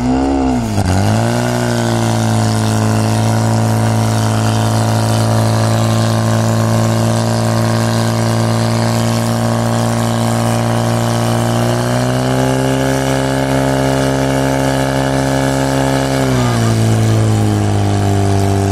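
Portable fire pump's engine revving hard, its pitch swooping up and down in the first second, then running steadily at high speed while pumping water to the hoses. The revs climb further about twelve seconds in and drop back near the end.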